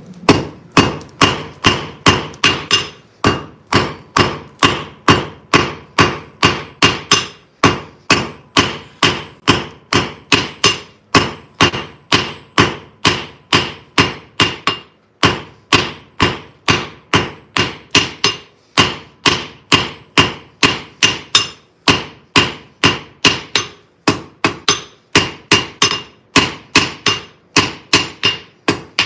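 Blacksmith's hammer striking hot iron nail stock on an anvil in a steady rhythm, about two and a half blows a second, each with a short ring, with a few brief pauses. This is drawing out and refining the taper of a hand-forged rose head nail's shank.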